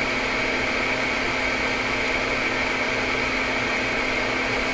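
Fume extractor fan running steadily, a constant hum with an even hiss over it.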